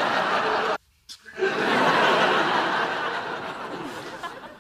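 Sitcom studio audience laughing. The laughter cuts off abruptly under a second in, and after a brief silence a second wave of laughter swells up and slowly fades away.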